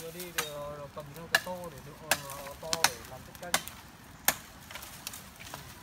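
Dry branches cracking as they are broken up for firewood: a run of about five sharp snaps, roughly one every three-quarters of a second, with rustling of twigs between them.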